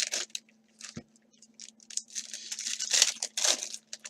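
Baseball card pack wrappers being torn open and crinkled, with a loud crackling stretch near the end. A single soft thump about a second in.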